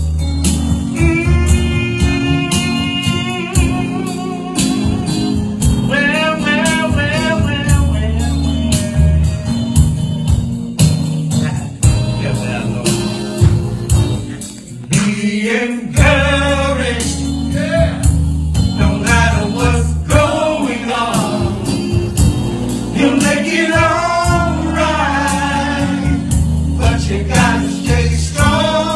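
Blues-gospel band playing live with a male lead voice singing over it; a low bass line and an even drum beat carry the song.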